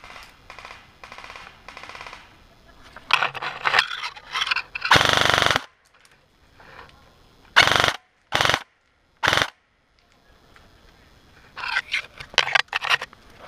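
Airsoft guns firing in bursts: a string of rapid shots about three seconds in, a longer full-auto burst around five seconds, three short bursts soon after, and another string of shots near the end.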